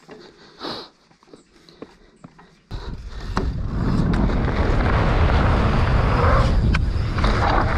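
Wind rush and rolling rumble on a mountain bike rider's action camera as the bike is ridden at speed. It starts suddenly about three seconds in and stays loud, with a couple of sharp clicks from the bike.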